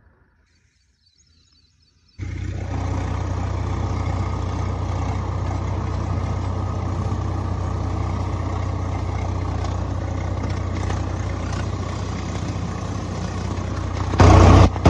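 A tractor's diesel engine running steadily as it drives over tilled ground. It starts about two seconds in and grows louder near the end.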